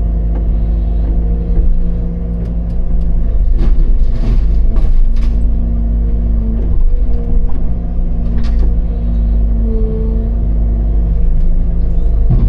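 Excavator diesel engine running steadily with hydraulics working, and several sharp crashes and cracks of debris as the machine tears into a wooden house, a cluster about four seconds in and another near the end.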